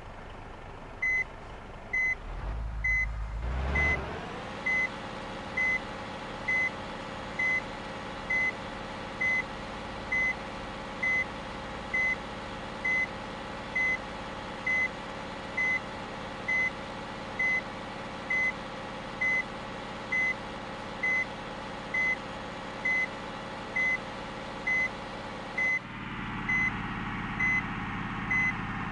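Vehicle reversing alarm beeping steadily, a short high beep about once a second, over an engine running steadily. The engine revs briefly about three seconds in, and its note drops and gets louder near the end.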